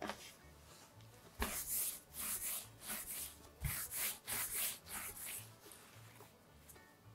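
Palms rolling bread dough back and forth on a marble pastry board: a run of soft hissing rubs, about two a second, starting about a second and a half in and stopping near the end, over faint background music.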